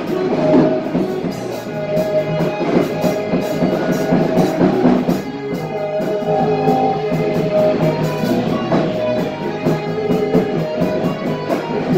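Instrumental rock music with electric guitar over a drum kit keeping a steady beat.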